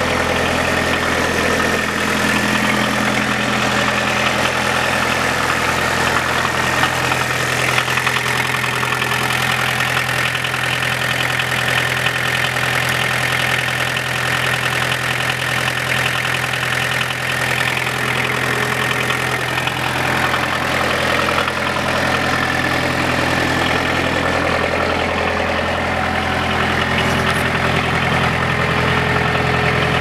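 New Holland LX565 skid steer's diesel engine idling steadily.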